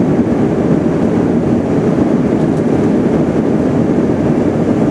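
Steady airliner cabin noise heard from a passenger seat: a constant low rushing of engine and air noise, even throughout.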